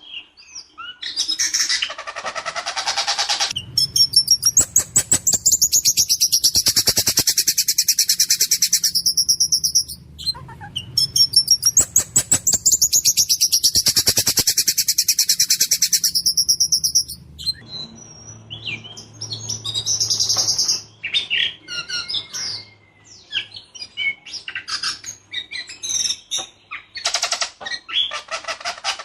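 White-rumped shama singing hard, with two long runs of very rapid repeated rattling notes under high sweeping whistles (the 'rol tembak' rolls, in a harsh, clear voice), then a looser string of short varied whistles and chirps.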